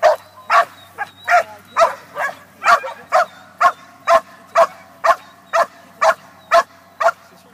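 A nine-month-old Belgian Malinois barking over and over at a steady pace, about two barks a second: guard barking at a decoy in a bite apron during protection training.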